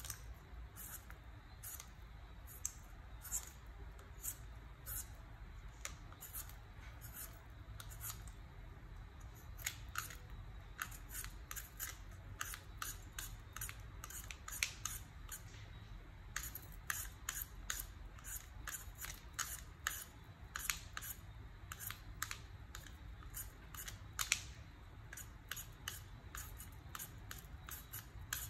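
Vegetable peeler scraping the skin off a potato: a run of short, crisp strokes, about one or two a second, coming thicker from about ten seconds in.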